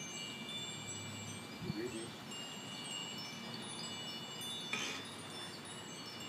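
Chimes ringing, several high tones sounding and fading and overlapping one another throughout. Two brief louder sounds break in, a short low one about two seconds in and a short hiss-like one near five seconds.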